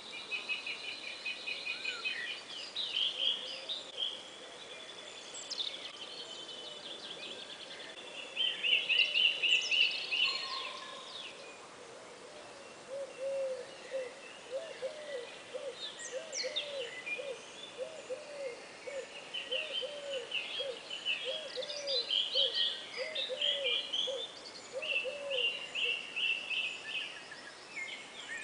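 Several birds singing at once, with high chirps and trills throughout. From about halfway in, a lower call repeats about once a second for some twelve seconds.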